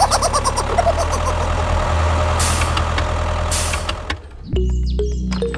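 A vehicle engine idling steadily, with two short bursts of hiss like an air brake about two and a half and three and a half seconds in. The engine cuts off after about four seconds and music begins.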